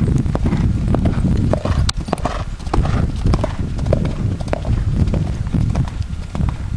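Horse's hooves striking sand arena footing in a quick, uneven rhythm of hoofbeats as it canters, over a steady low rumble.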